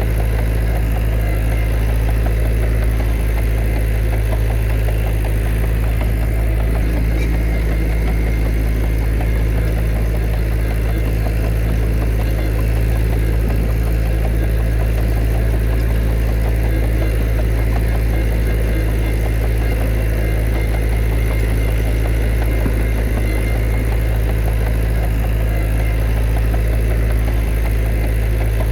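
Heavy diesel engine of earthmoving machinery running steadily at an even speed, a constant low drone with no revving or pauses.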